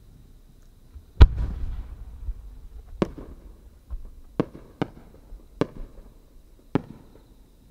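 Aerial firework shells going off. About a second in comes a deep boom that rumbles on. Five sharper single bangs follow at irregular intervals through the rest.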